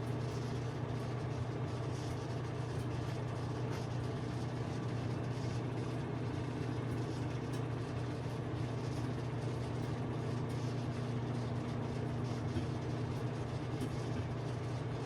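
Microwave oven running with a steady hum while bacon cooks inside, with scattered irregular pops of spattering bacon fat.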